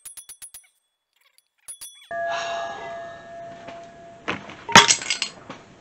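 A short sting of bell-like music dings. About two seconds in comes a hiss with a steady whine, and around four to five seconds in there are several loud, ringing metal-on-metal clanks: a hammer and chisel driving a worn carrier bearing off a two-piece driveshaft.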